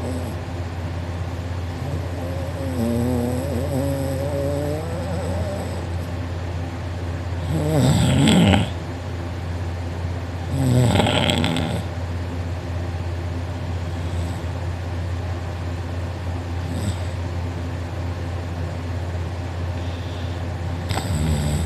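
A man snoring loudly in deep sleep: several snores a few seconds apart, the loudest two about eight and eleven seconds in, over a steady low hum.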